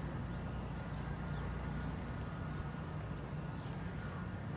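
Steady outdoor background with a low rumble and no work going on. A few faint, short high chirps come about one and a half seconds in.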